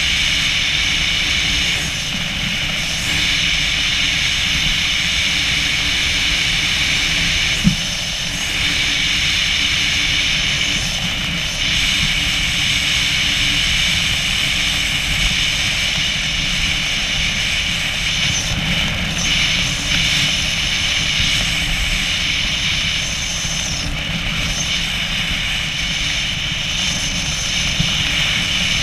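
Steady wind rushing over a skydiver's head-mounted camera under an open parachute canopy: a constant low rumble with a high whistling hiss, and one brief knock about eight seconds in.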